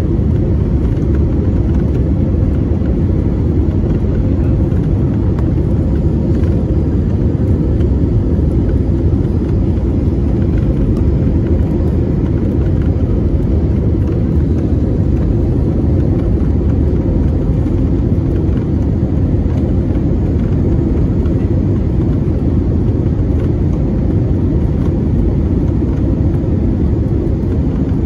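Steady low rumble inside the cabin of an Airbus A320-232 in flight: engine and airflow noise heard from a window seat, even in level throughout.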